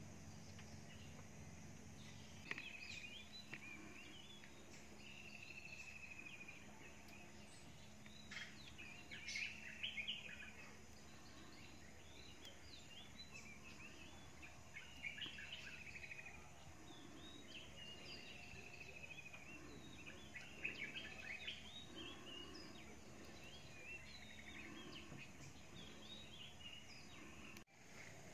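Faint birdsong: several birds giving short chirps and rapid trills, scattered through, over a quiet steady background.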